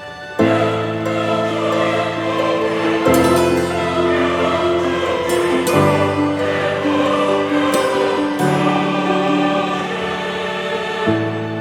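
Background music: slow, sustained chords, possibly choral, that change about every three seconds.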